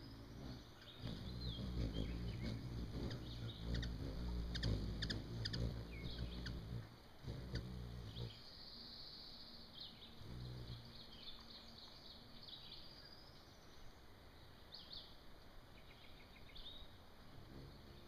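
Hummingbirds at a feeder: a low hum of wingbeats as they hover close by, loudest for the first eight seconds, with short high chips and chirps throughout.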